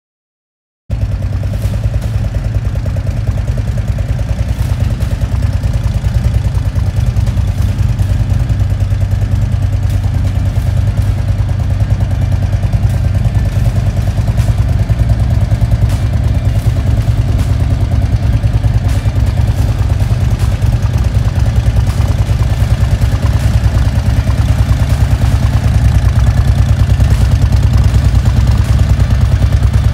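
Harley-Davidson CVO Street Glide's V-twin engine idling steadily with a rapid, loping low pulse. It starts about a second in.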